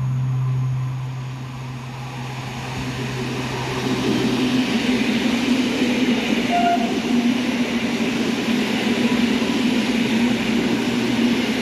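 Two coupled EN57AKM electric multiple units passing through the station without stopping. The rush of wheels and running gear builds up about four seconds in and then holds steady as the cars go by.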